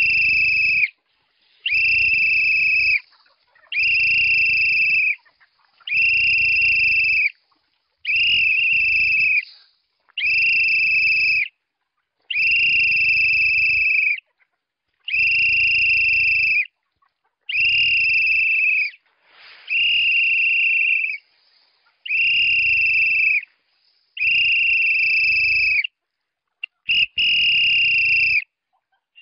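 A farmer's whistle blown in more than a dozen long, steady, high-pitched blasts, one about every two seconds, calling a flock of chickens in to feed.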